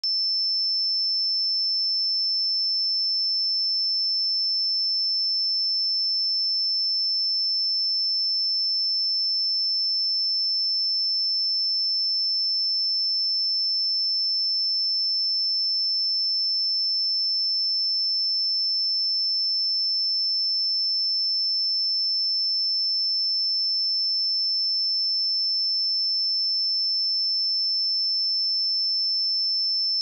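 A steady 5305 Hz sine-wave test tone: a single high-pitched pure tone held at a constant level without change.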